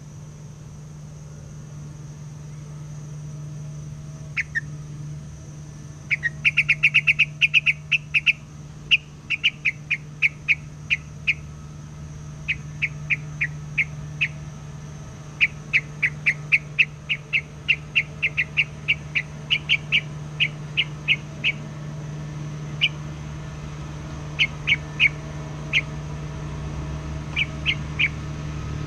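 Hoành hoạch (streak-eared bulbul), a decoy bird calling non-stop: a series of short, sharp, high notes that starts a few seconds in, comes in quick runs and then in scattered single notes. A steady low hum runs underneath.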